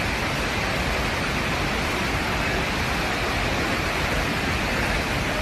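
Steady rushing of floodwater, an even noise with no breaks or single events.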